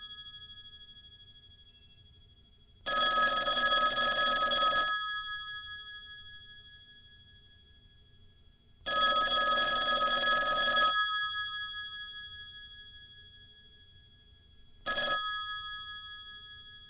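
Rotary telephone's mechanical bell ringer ringing: two rings of about two seconds each, a few seconds apart, then a short half-second ring near the end, each leaving the bells ringing on and dying away slowly.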